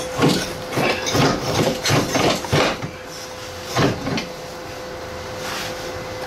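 Irregular metal knocks and clanks, several a second for about four seconds, as a hot, burnt-out rubber silent block is worked loose from a car's rear lower control arm, then a steadier, quieter noise.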